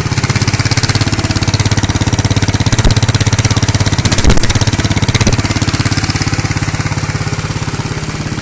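Homemade radio-controlled hydraulic excavator running steadily with a fast, even pulsing machine sound, with two short knocks about three and four seconds in.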